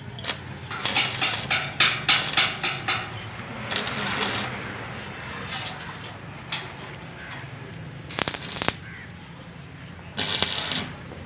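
Electric arc welding crackling in short, irregular bursts, with brief pauses between strikes.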